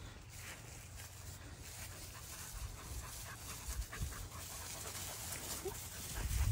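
German Shepherd puppies panting as they run and play in grass, with light rustling of paws and steps through the grass.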